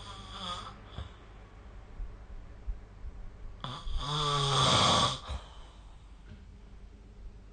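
A sleeping person snoring. The tail of one snore fades at the start, then one loud snore lasting about a second and a half comes about halfway in.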